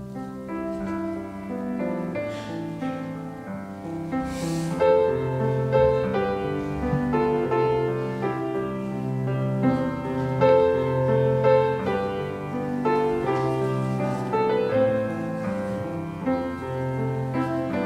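Piano playing slow, sustained chords that change about once a second.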